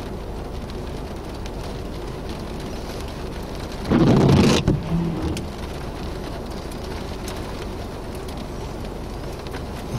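Steady rain and wind noise from a tornadic thunderstorm, with one loud burst of noise lasting under a second about four seconds in.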